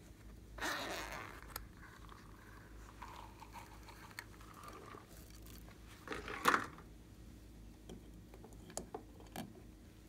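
Small plastic containers being handled by hand: faint rubbing and scraping with a few light clicks, and a short, louder scrape about six and a half seconds in.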